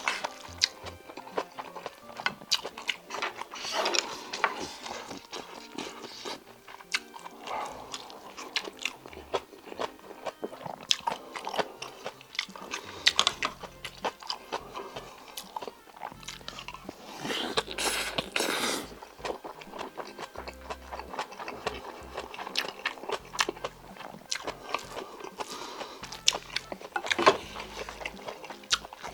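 Close-miked chewing and mouth sounds of a person eating spicy octopus bibimbap: irregular wet smacks and clicks, with one longer noisy sound about two-thirds of the way through.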